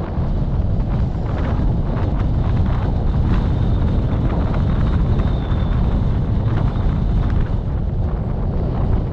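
Wind buffeting the microphone of a moving vehicle: a loud, steady low rumble with road and engine noise beneath, and a faint high whine for a few seconds in the middle.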